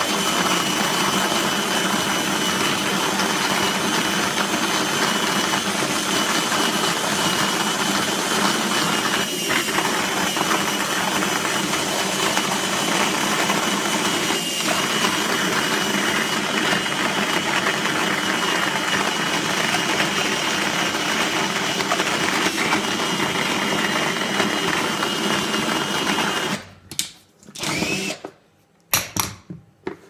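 Cordless drill spinning the burr of a Hario hand coffee mill, grinding coffee beans with a steady whir and a constant high whine. The drill cuts off near the end, followed by a few short knocks.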